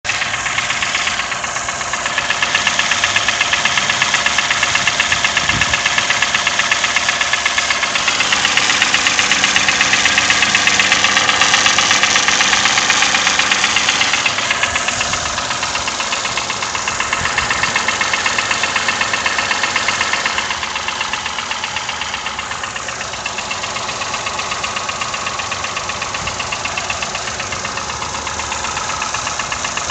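Toyota 1KR-FE three-cylinder engine running with a fast, steady ticking knock. The knock is there with a new timing chain, tensioner and chain guide fitted, and its cause is unknown.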